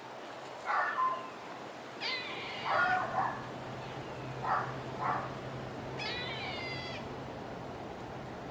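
A series of about six short, high-pitched calls that bend in pitch, some coming in pairs, spread over the first seven seconds. A low steady hum comes in about two seconds in.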